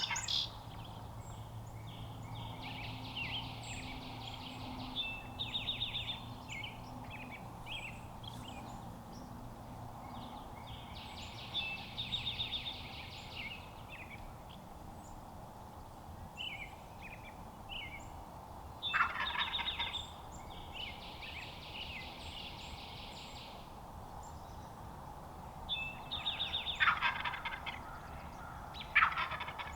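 Wild turkey tom gobbling loudly, once a little past the middle and twice near the end, with softer, higher calls in between.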